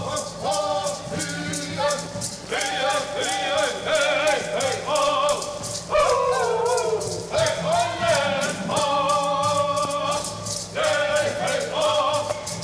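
Men's group singing a Yé'ii Bicheii dance song in high voices, in phrases with short breaks between them. A steady rattle runs underneath to keep the beat.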